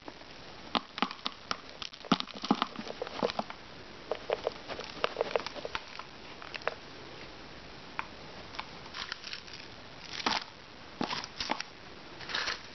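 Loose fibrous potting mix being dropped and pressed into a square plastic pot: irregular rustling and crackling with light taps on the plastic.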